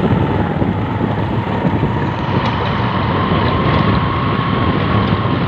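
Engine of a moving vehicle running steadily, with wind noise on the microphone and a thin steady whine over it.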